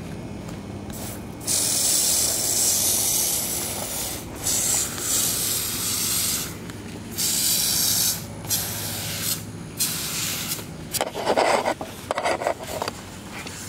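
Pressure washer spraying water onto pavement in several bursts of loud hiss, started and stopped with the trigger, with its motor humming steadily underneath. Near the end the spraying and hum stop, and a few footsteps follow.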